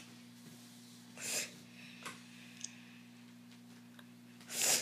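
Two short, sharp nasal sniffs from a person with allergies, about a second in and again near the end, with a few faint clicks between them over a steady low hum.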